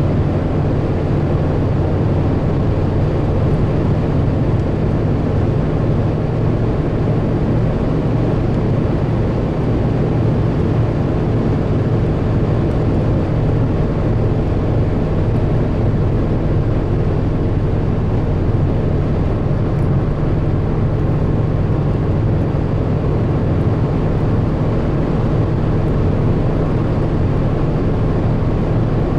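Steady road, tyre and engine noise inside a car cruising at motorway speed, mostly low-pitched and unchanging throughout.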